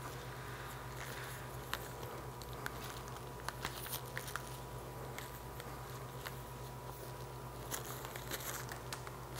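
Faint crinkling and scattered light ticks of plastic brine-line tubing being uncoiled by hand, over a steady low hum.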